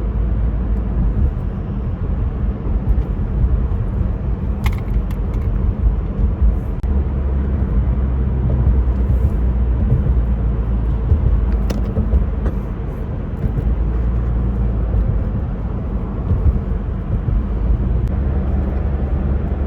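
Car cabin noise while driving: a steady low road and engine rumble, with two brief clicks about five and twelve seconds in.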